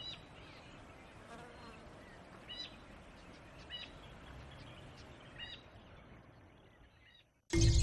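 Faint bush ambience: a steady insect drone with short, high bird chirps every second or two. It fades away near the end, and loud music cuts in just before the end.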